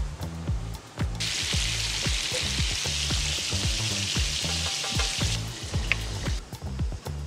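Hamburger steak patties sizzling in oil in frying pans: a loud frying hiss starts about a second in and dies away near the end. Background music with a steady beat plays throughout.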